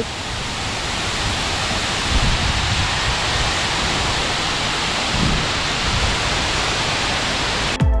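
Steady rush of water cascading down a 25-metre man-made waterfall over a stepped rock face. Electronic music with a beat cuts in near the end.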